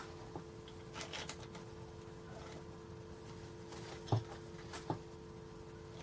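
A few scattered light clicks and knocks of hand work on a motorcycle clutch as its springs and nuts are being fitted, the loudest knock a little after four seconds in, over a steady low hum.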